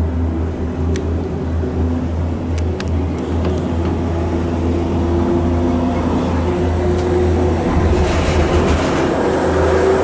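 Disney Skyliner gondola cabin running along its cable, heard from inside: a steady low hum and rumble, with a few light clicks. The noise grows rougher and hissier about eight seconds in.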